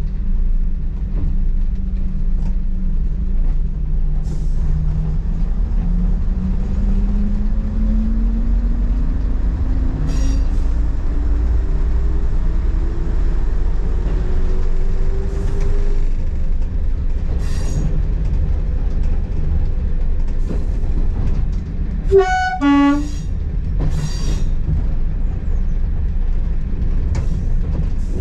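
Class 117 diesel multiple unit heard from its driving cab: the underfloor diesel engines and transmission run with a steady low rumble, and a whine rises in pitch over about ten seconds as the unit picks up speed. A little over twenty seconds in, the two-tone horn sounds briefly, a higher note then a lower one.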